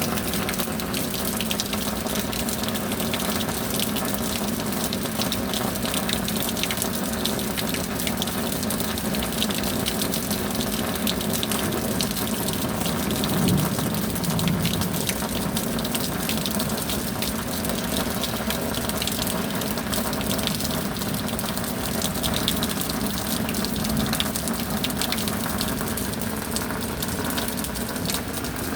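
Rain falling steadily, a dense patter of drops over a continuous wash of water.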